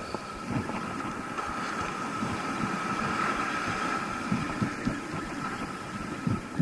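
Abu Garcia 5500C baitcasting reel being cranked while reeling in a hooked striped bass, a steady whir, with irregular low thumps, more of them in the second half.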